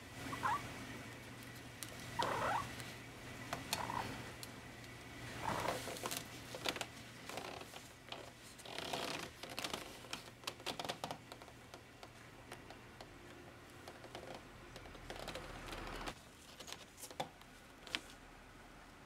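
American Curl cat making several short, high, affectionate meows in the first six seconds or so, over a steady low purr. Scattered soft rustles and clicks of the cat moving on the mesh hammock follow.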